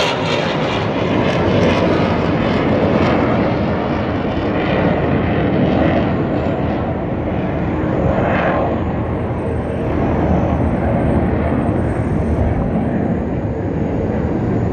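Military jet flying overhead: a loud, sustained jet rumble with a sweeping, phasing whoosh as it passes.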